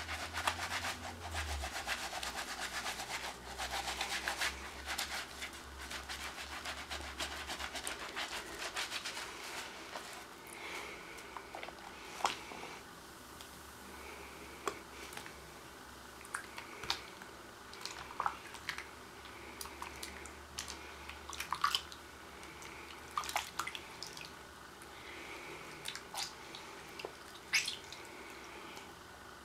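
Skin of the hands being scrubbed: fast, dense scrubbing strokes at first, which about a third of the way in thin out to scattered single scrapes and small clicks over a faint hiss.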